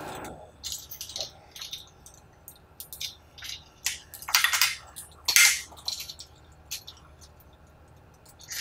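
Metal snap hooks of adjustable ratchet hangers clinking and rattling against aluminium LED grow-light bars as they are handled and clipped on. The sound comes as scattered short clinks, the loudest two about four and a half and five and a half seconds in.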